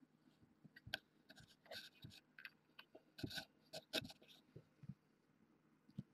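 Faint, scattered scratching and rustling with a few soft knocks, busiest in the middle seconds, from two kittens play-fighting against the camera, their fur and paws brushing and scuffing close to the microphone.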